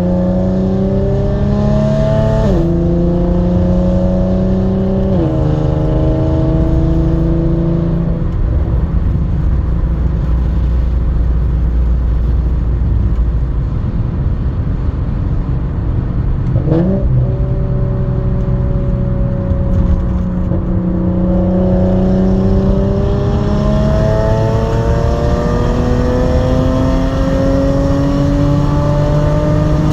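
Straight-piped Audi S4 engine and exhaust under acceleration: the revs climb and drop sharply at two quick gear changes in the first five seconds, then hold steady. About two-thirds of the way in there is a brief dip with a click, and then the revs climb slowly again to the end.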